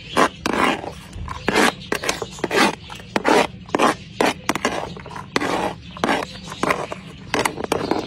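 Metal spoon scraping across a metal tray in repeated short, irregular strokes, two or three a second, pushing chopped vegetables off the tray's edge.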